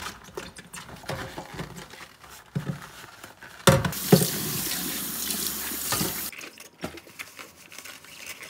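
Kitchen tap water running into a stainless steel sink for about two and a half seconds as the blender jar is rinsed. It starts with two knocks about halfway through and cuts off sharply. Light knocks and handling of wet blender parts come before and after it.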